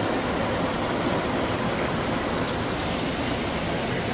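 Creek water rushing through a narrow rock channel in a cave, a steady unbroken noise.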